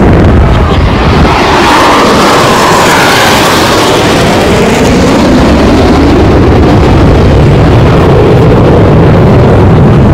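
Jet roar from a formation of Blue Angels F/A-18 Super Hornets passing by. It comes up loud right at the start and holds steady.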